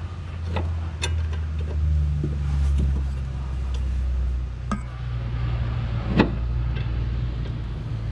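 A bolt being fitted by hand into a car's lower shock absorber mount: a few light metallic clicks and knocks, the sharpest about six seconds in, over a steady low hum.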